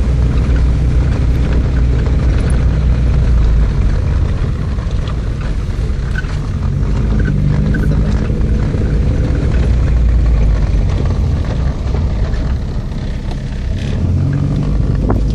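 Car driving slowly over a rough cobbled street, heard from inside the cabin: a steady low rumble of tyres on stone and engine. The engine note rises a little about halfway through and again near the end.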